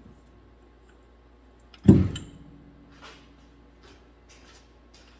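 A single heavy metal clunk with a short ring about two seconds in, followed by a few light clicks, as the differential carrier with its ring gear is pulled out of the rear axle housing.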